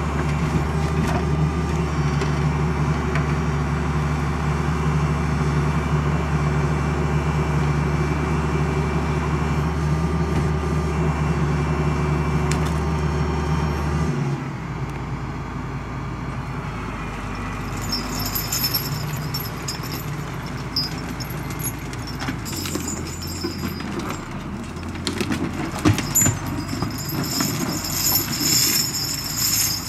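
Valtra 8050 forestry tractor's SISU 620DS 6.6-litre diesel running steadily during crane work with logs. The engine note changes suddenly about halfway through; after that, high-pitched squealing and a few knocks come in with the crane working.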